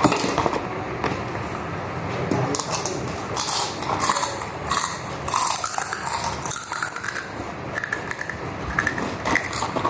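Crunching and chewing of crunchy snacks close to the microphone, an irregular run of short crackly bites.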